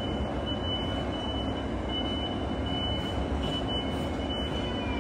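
Steady low rumble of an indoor ice rink's background machinery, with a faint high-pitched tone that comes and goes.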